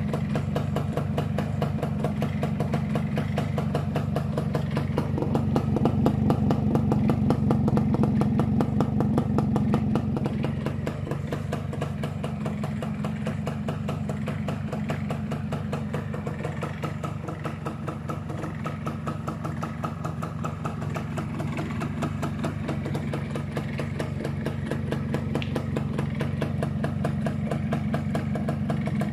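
Yamaha SS110's small two-stroke single-cylinder engine idling steadily. About five seconds in it picks up slightly, then settles back to idle near the ten-second mark.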